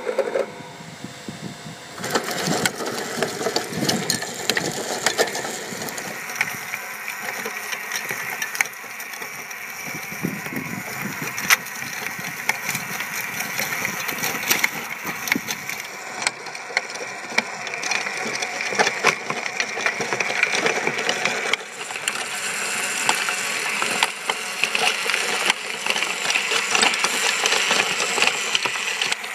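Eltex 2000-watt electric tiller running, its motor turning the tines as they churn through dry soil, with frequent knocks and rattles from clods and stones.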